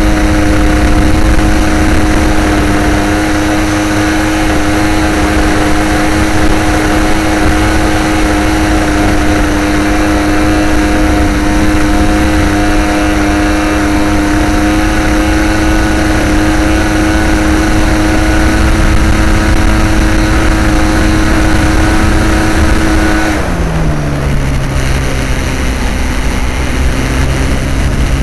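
RC model aerobatic plane's motor and propeller, heard from a camera on board, running at a steady high-pitched drone. About 23 seconds in it drops sharply to a much lower pitch: the throttle is pulled back as the plane comes down toward the airstrip.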